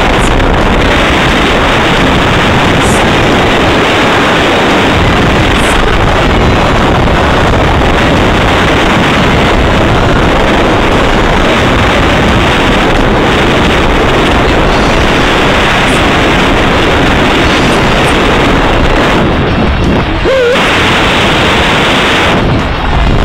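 Loud, steady rush of wind and road noise from a moving car, with wind buffeting the microphone.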